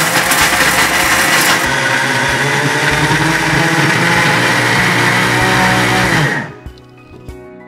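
Mixer-grinder running at full speed, grinding chilli, dry coconut and roasted chana dal (putnalu) into powder in a steel jar with a clear lid. It is switched off about six seconds in, and the motor winds down with a falling pitch.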